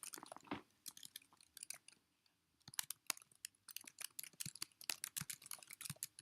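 Computer keyboard typing: a quick, uneven run of key clicks with a brief pause about two seconds in.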